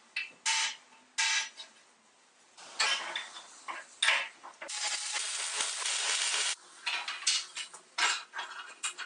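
Steel-on-steel clacks and scraping: a homemade magnetic welding angle, an old speaker magnet between bolted steel plates, snaps onto a steel welding table with three sharp clacks, then square steel tubing is knocked against it. A steady scrape follows in the middle, with a run of clicks near the end.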